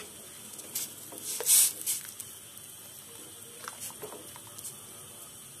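A wooden spoon stirring noodles in a steel pot of soup: the liquid swishes and the spoon ticks and scrapes against the pot. The loudest moment is a brief swish about a second and a half in.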